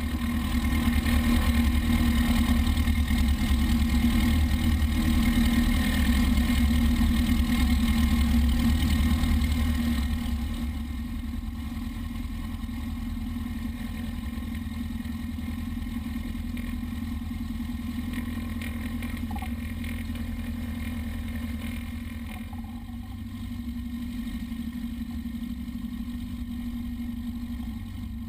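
Light aircraft's piston engine and propeller running steadily as the plane taxis. It runs at higher power for about the first ten seconds, then is throttled back to a lower, steady idle.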